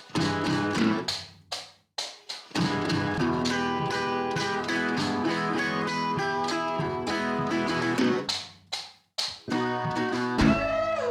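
Background music: strummed acoustic guitar with steady chords and brief pauses between phrases.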